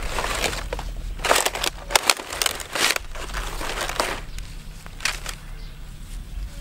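Dry palm fronds crackling and rustling in irregular bursts as a large wet stingray is turned over and shifted on them by hand, busiest in the first three seconds.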